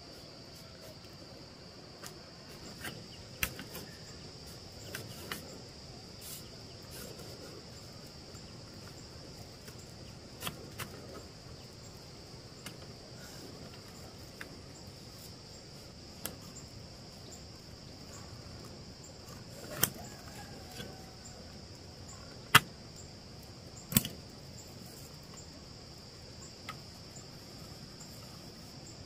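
Scattered sharp knocks and taps from hand building work, irregularly spaced, with the loudest few close together about three quarters of the way in. Under them runs a steady, high-pitched drone of insects.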